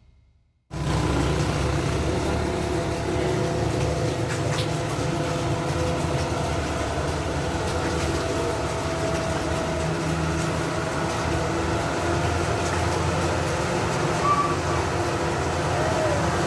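Tourist bus engine running steadily amid outdoor traffic noise, starting about a second in.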